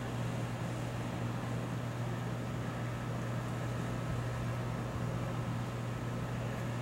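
Steady low mechanical hum under an even hiss, unchanging throughout, with no thunder claps or other sudden sounds.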